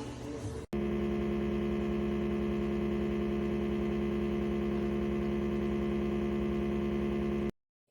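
Beverage mini-fridge's compressor running with a loud, steady hum that cuts off abruptly near the end.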